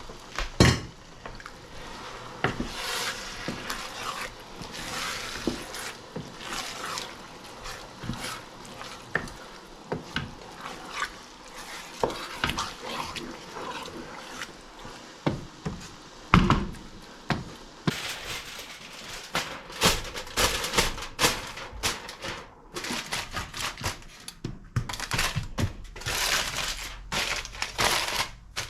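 Kitchen cookware being handled: utensils and pots knocking and clinking at irregular intervals, with two heavier thuds, about half a second in and around the middle, and bursts of hiss between them.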